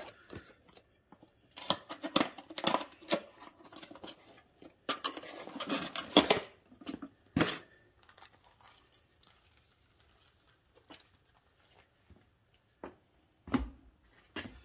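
A new rubber inner tube and its packaging being handled: quick bursts of scraping, crinkling and tearing for several seconds, then a sharp knock and a stretch of near quiet broken by a few light knocks near the end.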